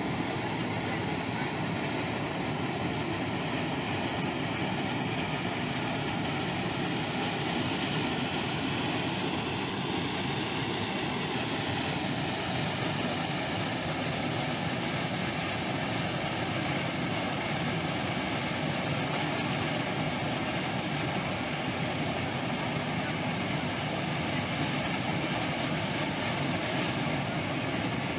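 Steamboat Geyser venting steam: a steady, even rushing noise of a strong steam jet from the vent, holding its level throughout.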